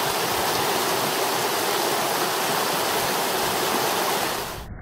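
Creek water flowing, a steady rushing hiss that cuts off abruptly near the end.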